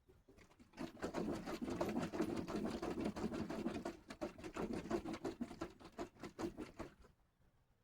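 A can of Thompson's Water Seal being shaken hard to mix it: liquid sloshing with rapid, rhythmic knocks. It starts about a second in and stops about seven seconds in.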